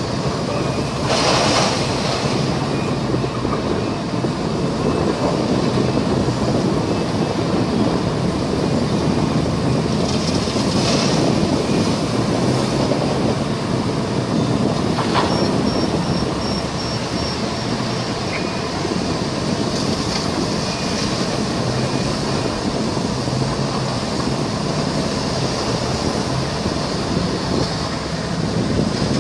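Steady mechanical rumble with a constant hiss, like heavy machinery or a vehicle running, with a few brief louder swells.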